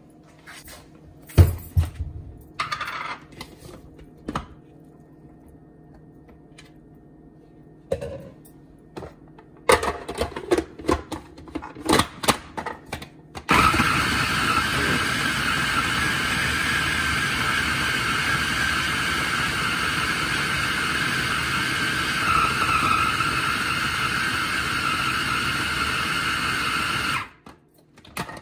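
Hamilton Beach food processor grinding raw chicken. First come scattered knocks and clatter as the bowl is loaded and handled. About halfway through the motor starts suddenly and runs steadily for about fourteen seconds, then cuts off shortly before the end.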